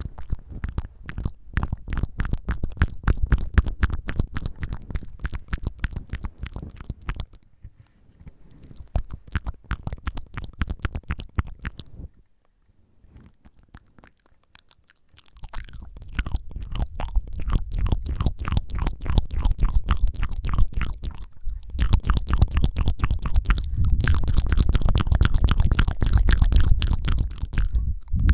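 Close-miked ASMR mouth sounds: rapid wet tongue fluttering and clicking, dozens of small clicks a second. They stop for about three seconds a little before the middle, then resume louder.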